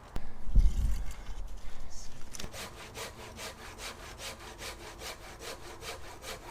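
Folding saw cutting through wood in quick, even strokes, about three a second, starting a couple of seconds in. A heavy low thump and rumble comes just before the sawing begins.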